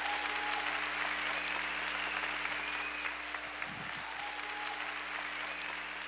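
Large audience applauding steadily at the end of a talk, easing off slightly near the end.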